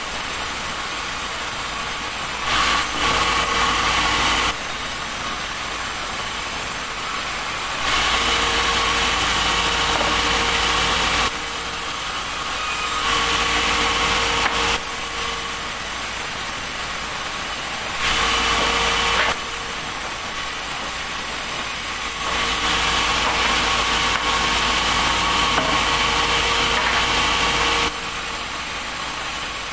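Sawmill running, its saw cutting through timber over steady engine noise. The sound changes abruptly every few seconds, louder and quieter stretches switching without a build-up.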